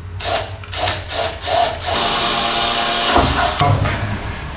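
Cordless drill run in several short trigger bursts, then held on for about a second and a half before it winds down near the end.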